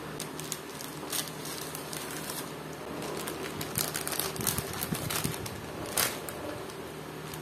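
Irregular light clicks and knocks, denser toward the middle and with one sharper knock about six seconds in, over a steady background hum.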